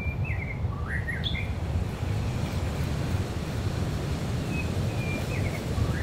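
A songbird sings the same short phrase twice, about five seconds apart: a couple of steady whistled notes, then quick notes sliding up and down. Under it runs a steady low rumble of surf.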